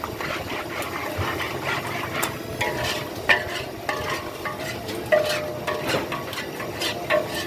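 Metal spatula clinking and scraping against a wok while noodles are stir-fried, with repeated sharp knocks and brief metallic rings.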